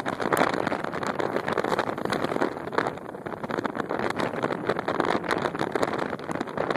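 Wind buffeting the phone's microphone: a loud, continuous rushing noise that flutters and surges irregularly.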